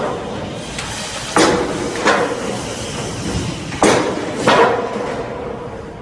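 Four hammer blows on wooden construction formwork, sharp knocks at irregular spacing, each with a short ring.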